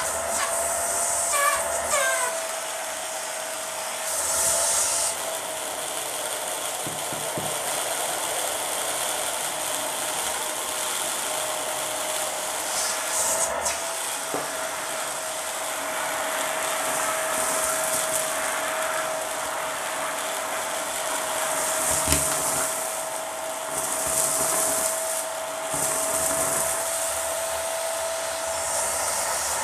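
Dyson vacuum cleaner running with its hose attachment: a steady motor whine and suction hiss, broken now and then by short rattling bursts as crunchy debris is sucked up through the hose.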